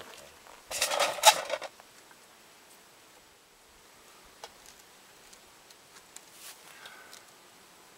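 A short burst of rustling about a second in, then a quiet outdoor background with a few faint clicks.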